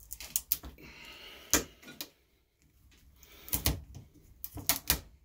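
Pliers wrenching at an Otto Lock's orange sheathed band held in a bench vice: a series of irregular sharp clicks and snaps as the band is gripped, twisted and torn, the loudest about a second and a half in and near the end.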